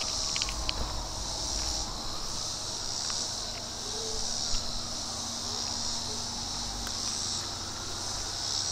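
Chorus of insects in the trees, a high buzz that swells and fades every second or two.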